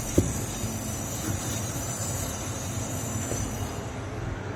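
Worn rear brake pad on a 2011 Ford Taurus grinding metal to metal against the rotor as the wheel turns, a steady scraping with a high hiss that fades about three and a half seconds in. The inner pad has worn through to its backing plate and is cutting into the rotor.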